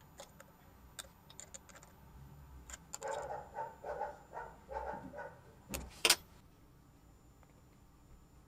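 Small metal parts and tools clicking and clinking as they are handled, with a run of four or five short ringing rattles about three seconds in and two sharp clicks near six seconds.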